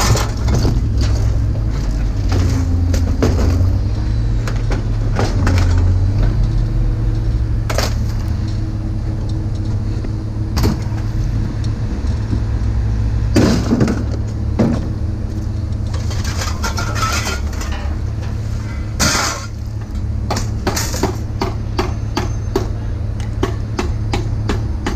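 A vehicle engine idling with a steady low hum, under repeated knocks and clanks of scrap items being handled, the loudest about 13 and 19 seconds in.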